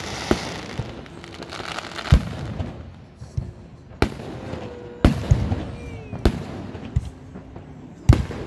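Fireworks display: aerial shells bursting overhead with sharp bangs, about eight in all, coming every one to two seconds.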